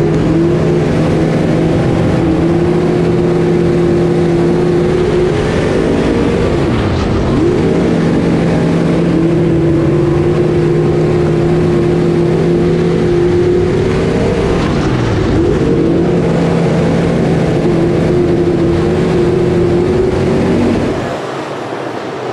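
Street stock race car's V8 engine at racing speed, heard from a camera mounted on the car: it holds a steady high pitch, then dips and climbs back about every seven to eight seconds as the driver lifts off for the turns and gets back on the throttle. Near the end the sound drops to a quieter, more distant rumble of the field of race cars.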